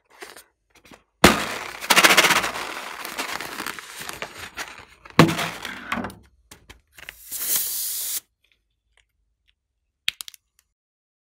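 Inflated latex novelty balloon being handled and let down: loud crackling and rubbing of the rubber, then a hiss of air that cuts off suddenly about two-thirds of the way in. A short scissors snip comes near the end.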